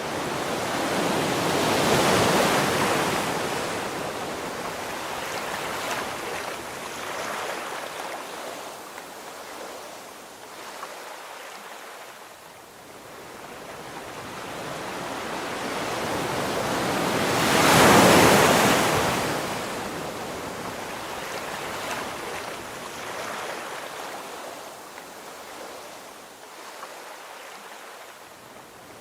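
Sea waves breaking and washing in, a steady rush of surf that swells to a loud crash about two seconds in and again past the middle.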